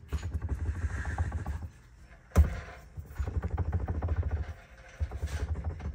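Rapid mechanical clatter in three bursts from a tool running in the single bolt on a manual 5-speed shifter assembly, with one sharp knock a little over two seconds in.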